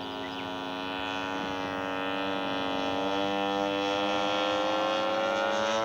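A radio-controlled scale model airplane's engine runs steadily and grows louder as the plane comes in low. Its pitch rises slightly in the second half.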